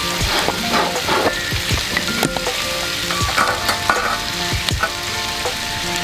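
Lamb and onions sizzling in a cast-iron pan over a campfire: a steady frying hiss with scattered crackles.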